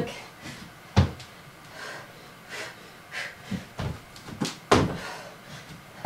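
Burpees with jump landings: feet and hands thudding on an exercise mat over a wooden floor, the heaviest landings about a second in and near the end, with short hard exhaled breaths between them.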